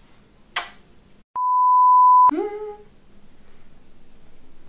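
A single steady electronic bleep tone, about a second long, starting and stopping abruptly. It is the loudest sound here. A short kissing smack comes just before it, and a snatch of voice right after it.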